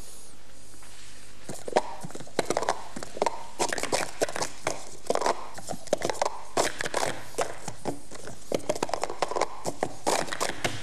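Plastic speed-stacking cups clacking and clattering in quick, irregular bursts as a sport stacker runs through a full cycle of stacking and unstacking at record pace. The clacking starts about a second and a half in and stops just before the end.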